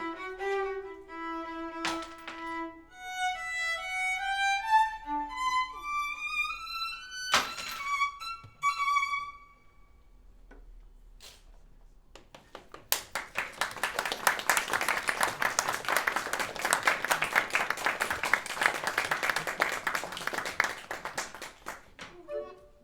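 Solo violin playing stepwise rising and falling runs of notes for about nine seconds, then a short pause. After that comes a dense, rapid clatter lasting about nine seconds.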